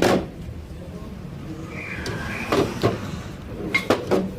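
A few sharp knocks and clicks of parts and tools being handled, with a brief scrape a little before the middle: a loud knock at the start, then two about halfway through and two more near the end.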